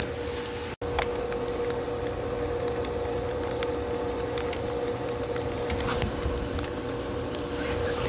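A steady machine hum holding one constant mid-pitched tone, under rustling handling noise and scattered light ticks. The sound cuts out for an instant about a second in.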